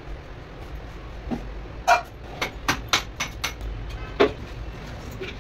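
Knife chopping watermelon on a wooden cutting board: a run of sharp knocks, the loudest about two seconds in, then a quick series of about four a second, and one more knock about four seconds in.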